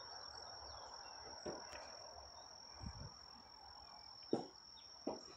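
A steady, high-pitched insect drone over faint outdoor ambience, with a few soft thumps, the loudest near the end.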